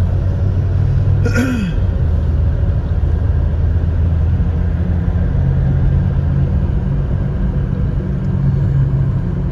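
Steady low engine and road rumble inside a moving car's cabin. About a second and a half in there is one brief sound with a short bending pitch.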